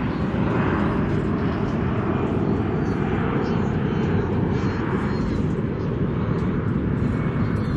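Steady low outdoor rumble with a faint drone that slowly falls in pitch.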